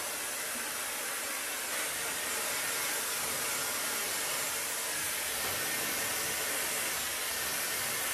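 Handheld hair-dryer wand blowing warm air over wet hair roots: a steady, even airy hiss that doesn't change in pitch or loudness.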